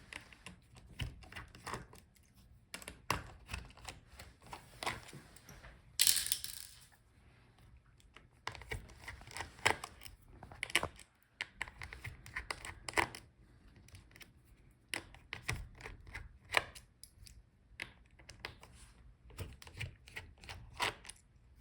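Scattered small clicks and taps of a screwdriver and small screws as the hinge screws are taken out of a laptop, with a brief rasping noise about six seconds in.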